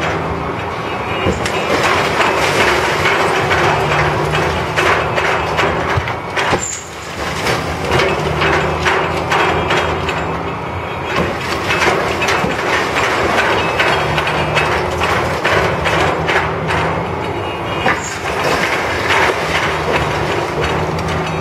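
Heavy demolition machinery at work: a crane's diesel engine running, its low note coming and going with load, under continuous clanking and clattering of machinery and falling brick and concrete rubble.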